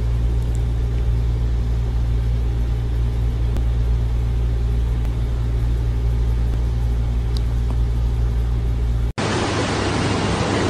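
A steady low rumble with a hiss over it, unbroken and without any rhythm. About nine seconds in it cuts off and a steady, louder hiss takes its place.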